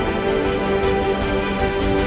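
Background music with held instrumental notes.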